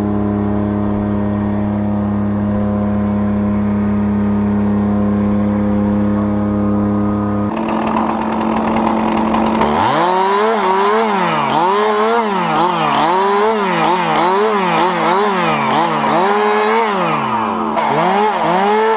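An engine runs at a steady speed. About eight seconds in, a chainsaw takes over, revved up and down again and again, roughly once a second, as it cuts.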